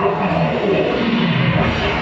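Loud recorded music played for a group dance routine, with a beat and a pulsing low end.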